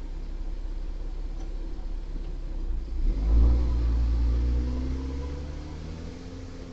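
A car's engine going by, its rumble swelling about three seconds in as the engine note rises while it picks up speed, heard through a doorbell camera's built-in microphone.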